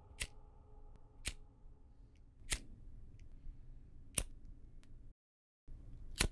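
Five sharp, isolated clicks, one every second or so at uneven spacing, over a faint low rumble. The sound drops out to total silence for about half a second near the end.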